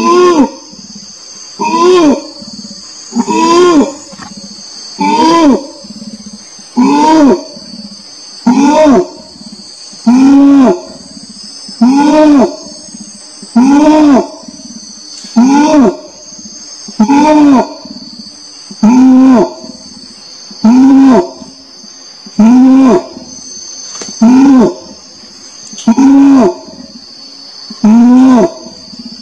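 Orangutan calling: a long, evenly paced series of loud calls, about one every 1.8 seconds, each rising and then falling in pitch. A steady high buzz runs underneath.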